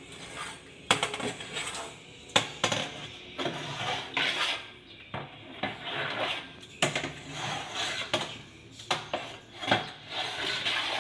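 A metal pole stirring soapy water in a plastic basin: irregular knocks and clatters as it strikes the basin, with splashing between them.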